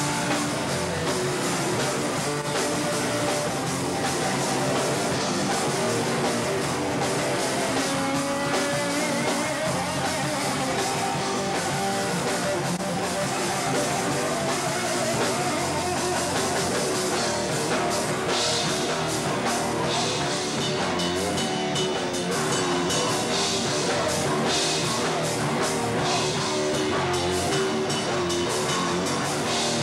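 Live rock band playing loud, with distorted guitar, bass and a pounding drum kit. The top end gets brighter and crashing from about two-thirds of the way through.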